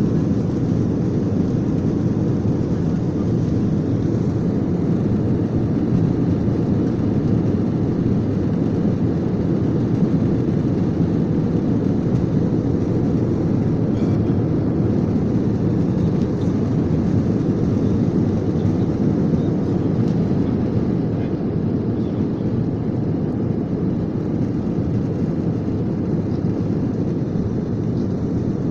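Jet airliner cabin noise during the climb after takeoff: a steady low rumble and rush from the engines and airflow, heard through the fuselage.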